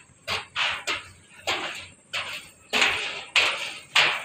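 Footsteps on a steel mesh catwalk, a steady walking pace of about one step every half second.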